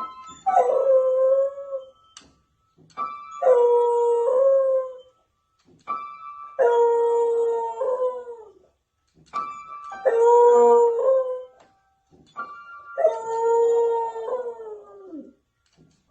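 A dog howling five long, pitch-bending howls, each along with a held musical note, as if singing along.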